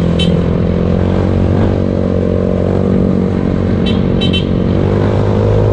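Yamaha Mio scooter's single-cylinder engine running steadily while riding, its pitch rising slightly about five seconds in. Brief high chirps come twice, once at the start and once about four seconds in.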